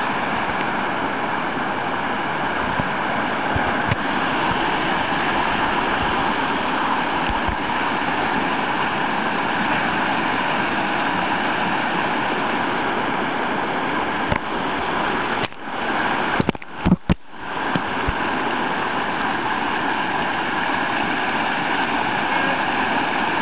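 Whitewater rushing steadily around a river standing wave, heard up close at water level. About 16 seconds in, the rush briefly drops out and is cut by a few sharp knocks.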